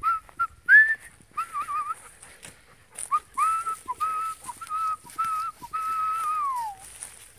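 A person whistling to call dogs along: a run of short whistled notes, then longer warbling ones, the last held and sliding down in pitch near the end.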